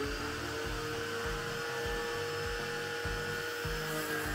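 Agaro Royal 1800 W electric pressure washer running, its motor-pump holding a steady whine while the high-pressure jet hisses against the motorcycle.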